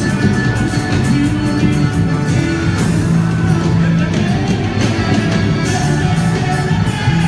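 Loud music with a steady beat, held melody notes and singing.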